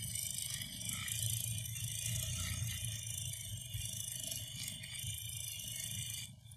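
Juki industrial sewing machine running continuously as it stitches denim, a steady whirring rattle of motor and needle. It is darning worn fabric with close rows of machine stitching. The sound dips briefly near the end.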